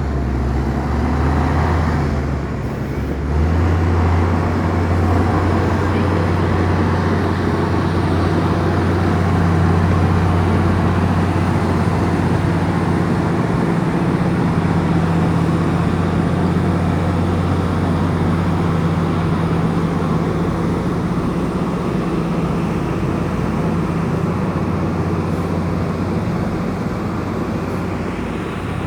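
Komatsu bulldozer's diesel engine running steadily under load. It dips briefly about two to three seconds in, then its note steps up and holds.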